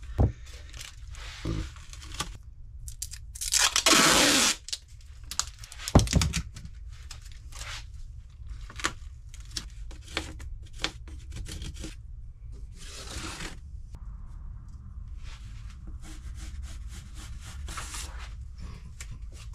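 Tape pulled off a roll and torn, in two loud rips of about a second each, around four seconds in and again near thirteen seconds. Between them are small crinkling and scraping handling noises and a sharp knock about six seconds in.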